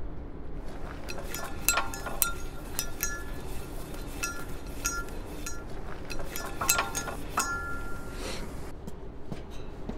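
Metal clinks and rattles from a valve on the foghorn's compressed-air tanks as its handwheel is turned by hand, in irregular clusters of ringing knocks, over a steady low machine hum.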